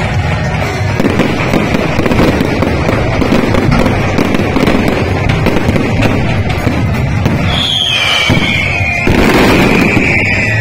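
Fireworks exploding and crackling in a dense, rapid stream of pops, with a louder stretch of bursts about nine seconds in.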